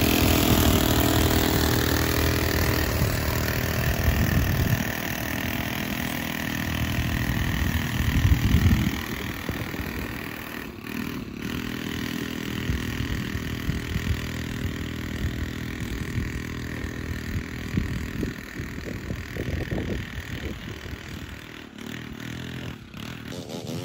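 Gas string trimmer's small two-stroke engine running, revved up a couple of times in the first nine seconds, then running steadier and fading as it moves away.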